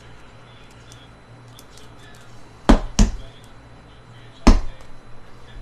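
Three sharp knocks: two close together nearly three seconds in, then one more about a second and a half later, with faint light ticks in between.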